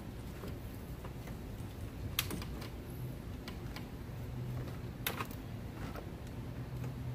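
Scattered light clicks and knocks of hand work on a car's radiator cooling fan assembly and its clips, with two louder clicks about 2 and 5 seconds in, over a steady low hum.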